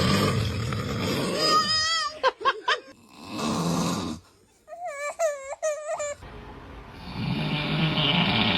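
A sleeping pet snoring: three long, noisy snoring breaths. Twice between them comes a high, wavering whine.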